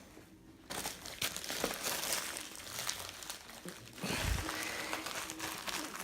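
Parcel packaging being opened by hand: crinkling and rustling of the wrapping with many small crackles, starting about a second in, and a dull thump about four seconds in.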